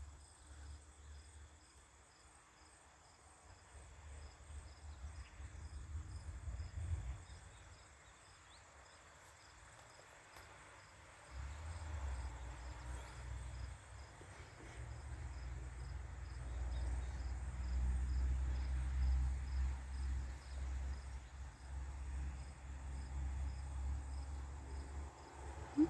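Crickets chirping steadily in an even pulse, under a low rumble that swells and fades unevenly and is strongest in the second half.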